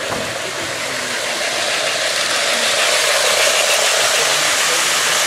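Model electric train running on its track: a steady mechanical rolling clatter of wheels and motor, getting louder about two seconds in as the train comes close.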